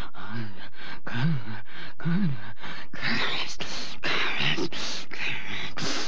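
A woman's voice making demonic vocal sounds without words: short groans that rise and fall in pitch, giving way about halfway through to harsh, rasping breaths and hisses.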